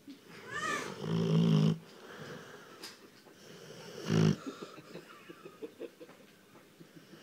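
Rottweiler snoring loudly in two breaths. The first is long and rattling, with a whistling note that rises and falls about half a second in. The second, a little after four seconds, is shorter.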